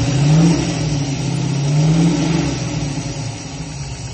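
Ford Racing Boss 347 small-block V8 crate engine blipped twice, rising in pitch, then settling back toward idle. It has a knock that the owner keeps pointing out, which a speed shop judges to be internal to the engine.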